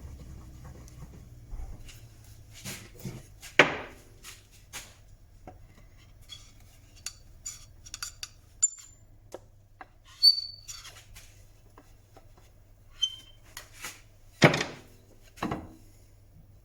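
Scattered knocks, clicks and clinks of hand tools and wood being handled and set down on a workbench, with two louder knocks about four seconds in and near the end, over a faint low hum.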